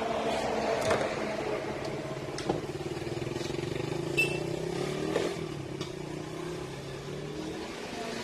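A vehicle engine runs steadily, its pitch drifting slowly. Several sharp metallic clicks from pliers working the wire terminals sound over it.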